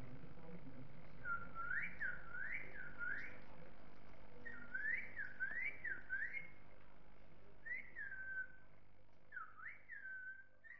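Whistling in short swooping notes, each dipping and rising in pitch. They come in bursts of two to four with short pauses between, and a single falling note past the middle.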